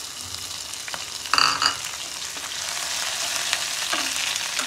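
Curry leaves sizzling in hot oil with mustard and fenugreek seeds in a tadka, the sizzle growing louder, with scattered crackles and a wooden spatula stirring. A brief loud burst about a second in.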